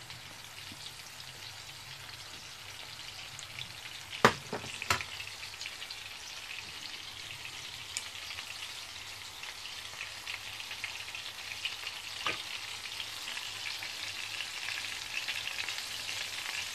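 Oil sizzling and crackling in a frying pan as meat-stuffed tofu pieces and meatballs shallow-fry until golden, growing a little louder toward the end. Two sharp knocks about four and five seconds in, and a lighter one around twelve seconds.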